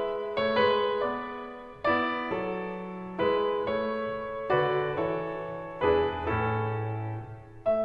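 Piano music playing over the footage: notes and chords struck every half second to a second and a half, each left to fade.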